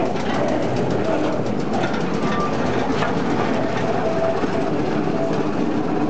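Small narrow-gauge field-railway locomotive's engine running as the train pulls away, with its open passenger wagons rattling along the track.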